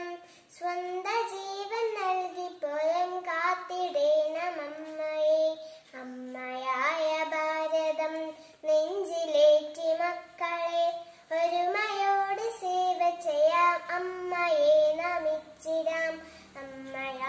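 A young girl singing solo and unaccompanied, in long held notes that glide between pitches, with short breaths between phrases.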